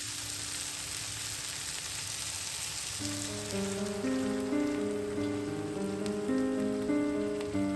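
Food sizzling in a frying pan, a steady crackling hiss. About three seconds in, gentle piano background music comes in over it.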